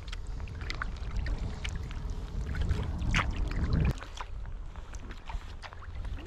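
Kayak paddling on open water: a carbon paddle blade dipping and pulling, water dripping and splashing off it in many small drops. A low rumble lies underneath for the first four seconds and then cuts off suddenly.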